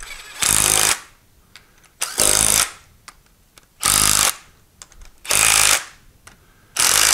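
12-volt DeWalt cordless driver running in five short bursts about a second and a half apart, spinning screws into a three-jaw lathe chuck body to snug them down without fully tightening.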